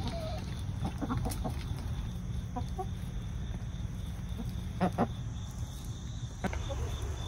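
Backyard hens clucking softly in short scattered calls while feeding on black soldier fly larvae. Two sharp clicks come about five seconds in, over a low steady rumble.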